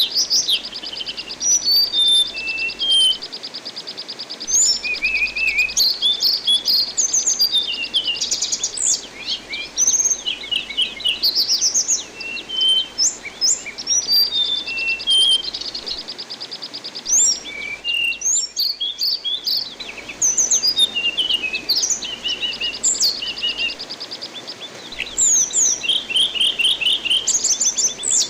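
Anis binbin songbird singing a varied song of quick chirps, whistled notes and long rapid trills, over a steady rush of running water.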